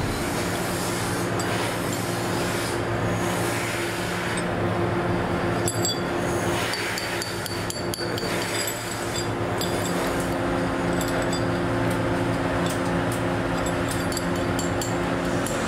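Cast metal motorcycle brake shoes clinking and scraping against each other as they are picked from a pile and set down in a row, many small clinks, over a steady machine hum.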